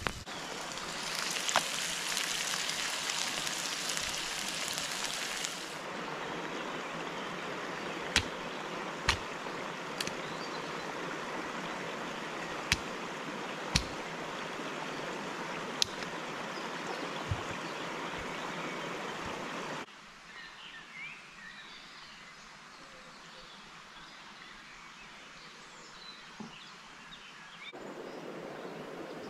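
Steady rushing of a mountain stream, with about half a dozen sharp snaps from a wood campfire. About twenty seconds in the rush drops quieter and faint chirps come through, then it rises again near the end.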